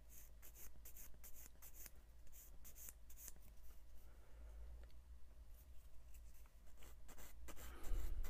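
Small flat hand file scraping a plastic model kit part in quick strokes, about four a second, cleaning off sprue nubs; the strokes pause for a few seconds in the middle, then resume. Distant thunder rumbles low underneath, loudest near the end.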